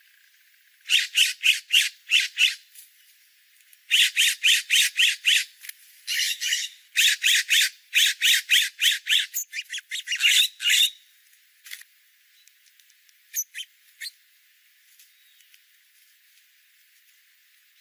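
A bird calling in quick runs of loud, repeated sharp notes, several phrases in a row, falling away after about eleven seconds to a few faint clicks.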